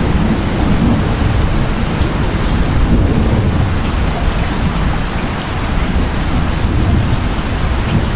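Steady rain falling, with a continuous low rumble of distant thunder underneath.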